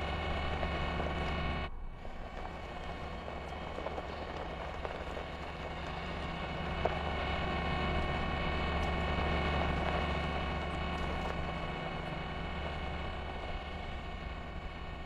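A steady low rumbling drone with several held tones over it, dropping out briefly about two seconds in, then swelling slightly and easing off toward the end.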